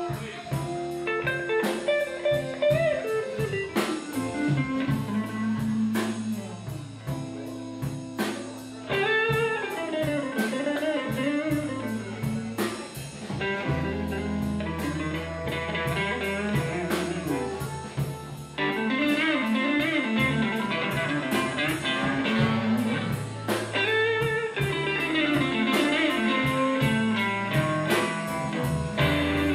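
Live blues band playing a slow West Side Chicago blues: an electric guitar lead with bent, wavering notes over electric bass and drums, with a steady cymbal beat.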